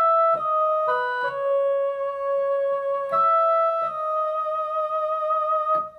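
Electronic keyboard playing a Tierra Caliente-style melodic ornament. A few held notes change several times in the first second and a half and again about three seconds in; the last note is held with a slight vibrato until near the end.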